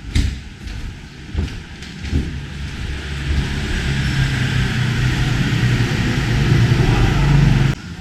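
A motor vehicle's engine running close by, a steady low hum with hiss that grows louder and then cuts off suddenly near the end. There are a few sharp knocks in the first couple of seconds.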